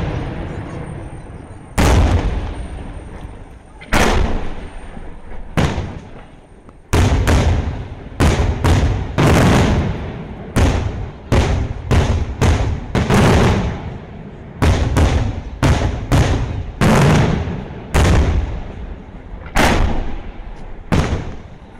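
Daytime aerial firework shells bursting overhead: sharp, loud bangs, each trailing off in a rolling echo. They come every couple of seconds at first, then quicken to about one or two a second from about seven seconds in.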